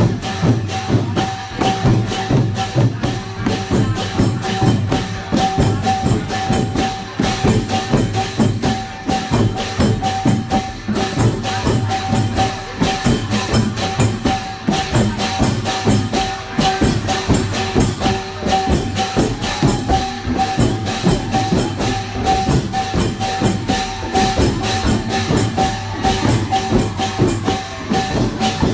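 Lively percussion-driven procession music: fast, even drumming with jingling hand percussion keeping a quick beat over a steady held note.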